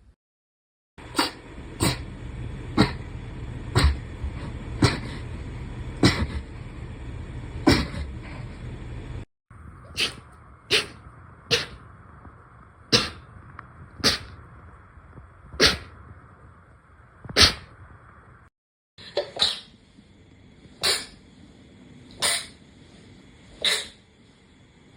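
A rapid series of short, sharp sneezes, about one every second, in three separate runs of six or seven sneezes each, joined by abrupt cuts.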